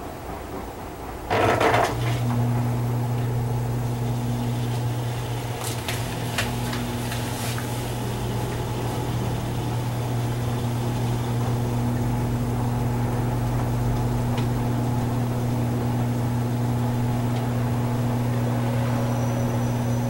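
Electrolux LFE10 front-load washing machine running mid-cycle. About a second in, a steady low hum starts abruptly and holds, with a few light clicks a few seconds later.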